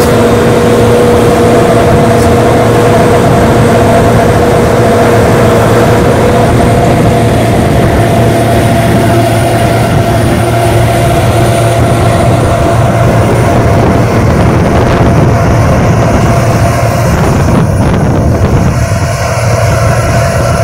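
Caterpillar PM102 cold planer's diesel engine running: a loud, steady drone, its tone shifting a little about halfway through.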